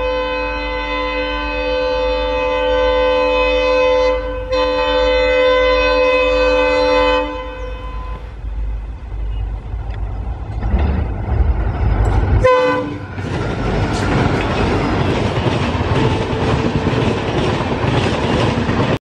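Indian Railways diesel locomotive air horn sounding in two long blasts over the first seven seconds, then the low rumble of the engine, a short toot about twelve seconds in, and the rushing clatter of coaches passing close by.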